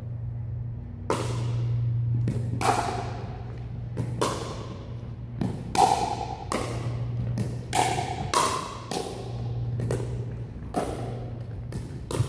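Pickleball rally: paddles repeatedly popping against the hollow plastic ball, with ball bounces, starting about a second in at roughly one or two hits a second. Each hit echoes in the large hall over a steady low hum.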